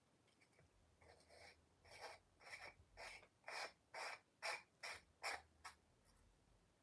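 A run of about ten short, scratchy rubbing strokes by hand on a small object, coming faster and louder toward the middle, then stopping.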